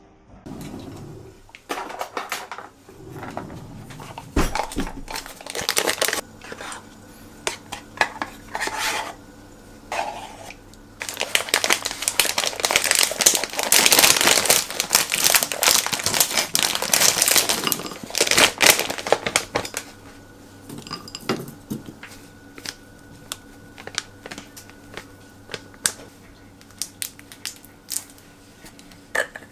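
Kitchen food-prep sounds: a wooden spoon tapping and scraping in a glass bowl of yogurt, with many small clicks and knocks. Around the middle comes a long, loud rustling stretch as frozen blueberries are shaken out of a plastic bag.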